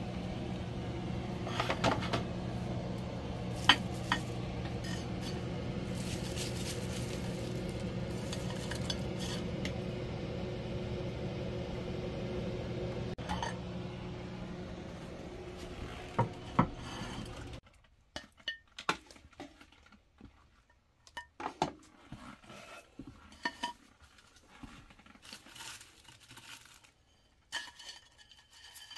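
Metal tongs and dishes clinking and knocking against a ceramic plate as wings, pizza and fries are plated. A steady low hum runs beneath and cuts off suddenly about two-thirds of the way through, leaving only scattered light clicks.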